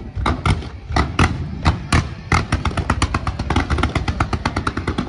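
Fireworks finale barrage: sharp bangs of aerial shells bursting in quick succession, speeding up to several a second about two seconds in.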